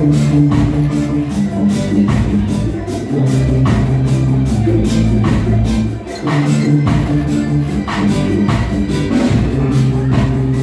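Live reggae band playing, with a steady drum beat over a low bass line.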